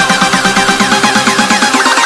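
Electronic dance music with a fast, evenly repeating pattern of short falling synth notes.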